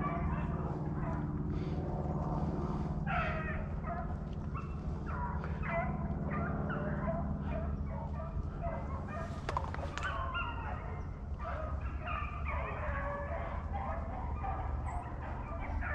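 A pack of rabbit hounds baying in overlapping calls, giving tongue as they run a rabbit's track through thick cover.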